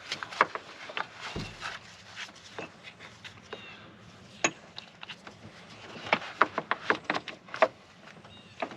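Irregular clicks and knocks of battery terminal hardware being handled and fitted, bunched most closely near the end.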